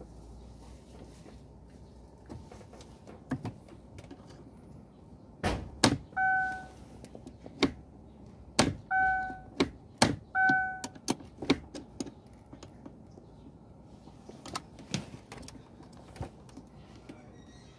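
Clicks and knocks of a metal rod being worked through the exposed automatic gear selector of a Chevrolet, standing in for the broken, jammed shift lever, with a burst of loud knocks in the middle. Three short beeps sound among the knocks.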